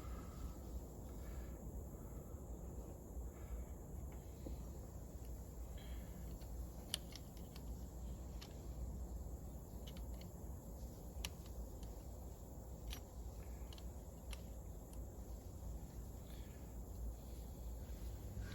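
Sparse, light metallic clicks of a wrench working the terminal nuts on a mower's starter solenoid, over a quiet low background rumble.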